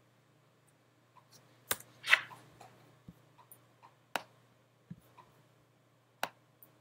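Scattered computer mouse and keyboard clicks: a few sharp single clicks, with a louder brief noisy rustle about two seconds in, over a faint steady low hum.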